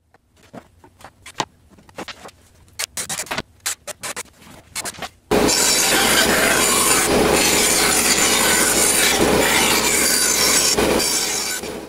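A few seconds of scattered sharp clicks and knocks, then from about five seconds in a band saw cutting a wooden plaque along a traced curve, a loud steady noise of blade through wood that cuts off just before the end.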